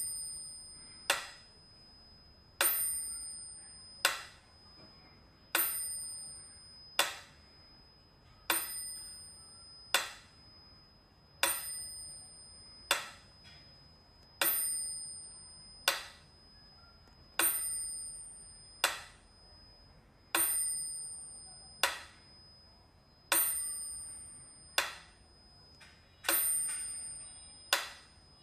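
A mechanical pendulum metronome ticking slowly, about one tick every second and a half, with its bell ringing on every other tick.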